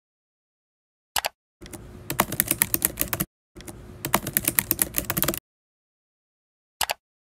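Computer keyboard typing: two runs of quick keystrokes with a short pause between them. A single short click comes before them and another near the end.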